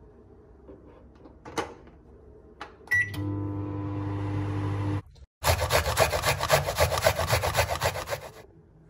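Microwave oven keypad clicks, then a short start beep and the oven running with a steady low hum for about two seconds. After a brief break, a louder rhythmic scratching noise, several strokes a second, takes over for about three seconds.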